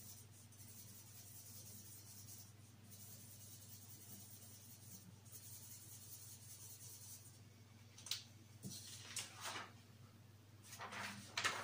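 Coloured pencil scribbling on paper, a faint steady scratching as circles are coloured in. From about eight seconds in, sheets of paper rustle as they are picked up and handled.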